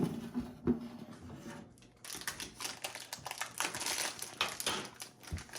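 Plastic snack-cake wrapper crinkling and crackling in irregular bursts as the pack is handled and opened. The crinkling is densest from about two seconds in.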